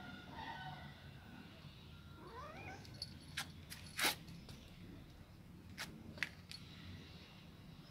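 A cat gives a short rising meow about two and a half seconds in. Then come a handful of sharp clicks, the loudest about four seconds in.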